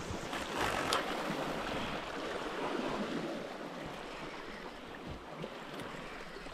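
Sea washing against a rocky shoreline with wind on the microphone, a steady rushing noise, with a couple of faint clicks about a second in.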